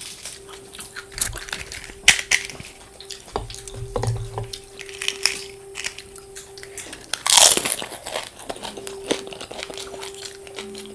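Close-up eating of pani puri (fuchka): crisp puri shells crunching under the teeth, with wet chewing, and a louder crunch about seven seconds in.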